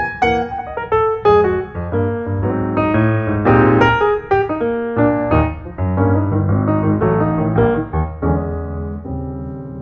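Piano music, a quick run of struck notes that thins out and fades near the end.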